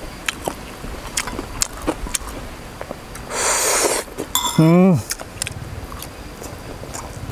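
Close-up eating sounds of a man chewing fried meatballs: wet mouth clicks and lip smacks, a short hissing slurp a little over three seconds in, then a brief hummed 'mm' that falls in pitch.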